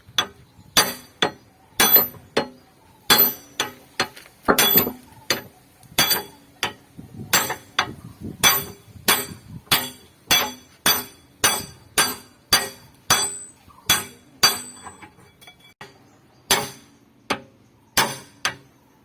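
Repeated hammer blows on steel, about two a second, each with a short metallic ring, with a brief pause about three quarters of the way through. The blows are typical of hammering excavator bucket teeth and their retaining pins on or off.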